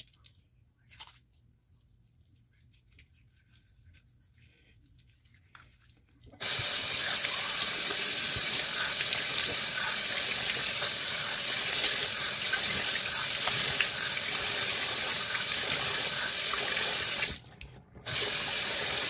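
Bathroom sink tap turned on about six seconds in, water running steadily into the basin while soap lather is rinsed off the face. The flow drops briefly near the end, runs again for about a second, then cuts off.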